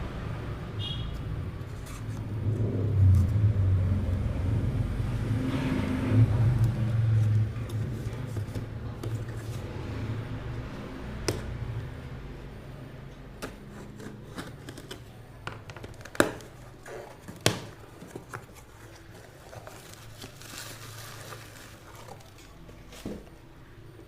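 A delivery parcel being opened by hand: scraping, rustling and low rumbling handling of the packaging for the first several seconds, then quieter with scattered clicks and knocks, two sharp ones about two-thirds of the way through.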